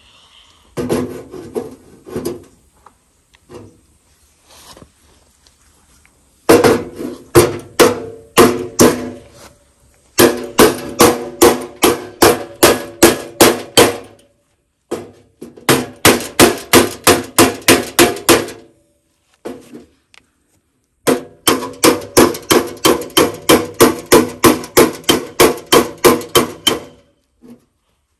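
A hammer beating on sheet metal in four runs of quick, even blows, about three to four a second, each with a short metallic ring; a few looser knocks come first.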